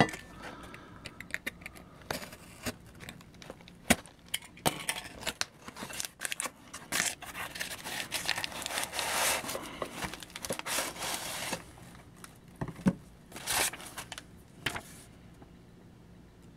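Packing material being torn open and crumpled by hand: irregular rustling and crinkling with many small sharp clicks and knocks, busiest in the middle and dying away near the end.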